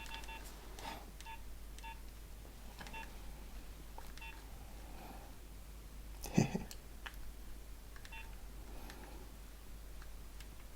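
Nokia 1100 keypad tones: faint short beeps at an irregular pace as the buttons are pressed, with a single louder knock a little past the middle.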